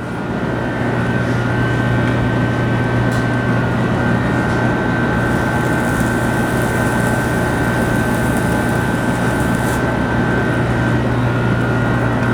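A machine running steadily, with a strong low hum, a constant high whine and an even rushing noise; it swells up over about the first second and then holds level.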